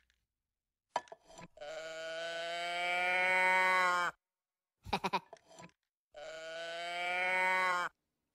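A cow-print moo-box toy being tipped, giving two long drawn-out 'moo' calls, each about two seconds and rising a little in pitch, with short choppy sounds before each one.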